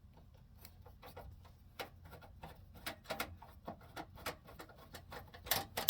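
Irregular small clicks and light taps, a few a second, with a louder click near the end, from working a screw loose on a graphics card's mounting bracket inside a PC case.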